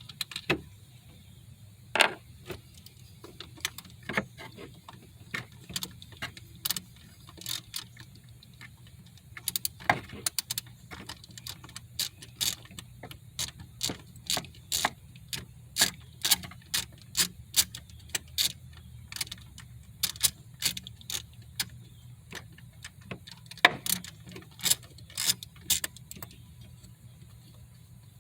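Irregular sharp metallic clicks and clinks from hand tools working on bolts, one or two a second and sometimes in quick clusters, over a low steady hum.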